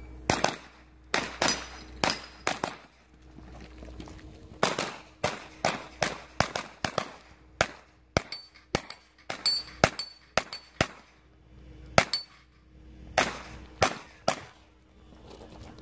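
A 9mm pistol-caliber carbine firing rapid strings of shots, about thirty in quick pairs and runs, with two short pauses of a second or so. Several hits are followed by the brief ring of steel targets.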